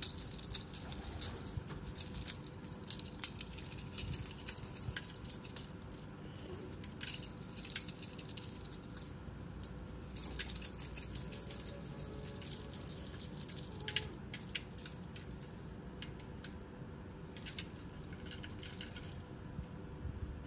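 Kittens scampering and pouncing on dry dirt, leaves and twigs while chasing a dangling feather toy: scattered light patter, scuffs and clicks at irregular moments.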